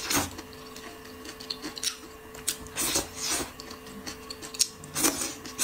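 A person slurping noodles from a bowl, three loud slurps about two and a half seconds apart, with chewing and light clicks of wooden chopsticks against the bowl in between.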